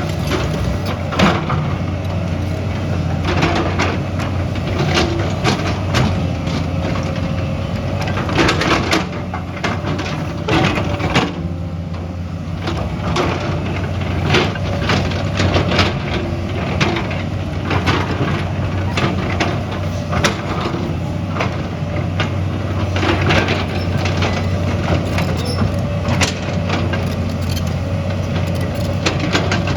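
A heavy construction machine's engine running steadily under load, with frequent knocks, cracks and crunches of rock and gravel being dug, pushed or dropped.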